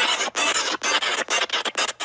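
A sped-up, effect-processed cartoon scream cut into rapid high-pitched squealing bursts, about four or five a second, quickening near the end.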